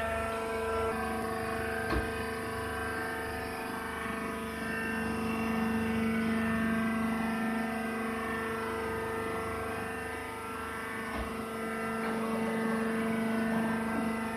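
Hydraulic baling press running with a steady hum, with a faint knock about two seconds in and another about eleven seconds in.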